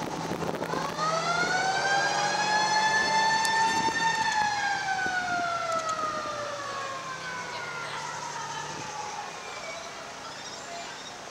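Fire engine siren giving one long wail: it rises about a second in, holds high for a few seconds, then slowly winds down and fades. The low run of the passing fire trucks' engines sits underneath.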